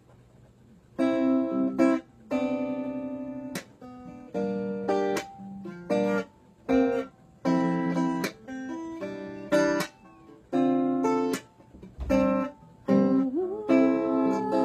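Guitar strumming chords one at a time, each left to ring briefly before the next, with short gaps between. Near the end a voice comes in, sliding up into a held, wavering note.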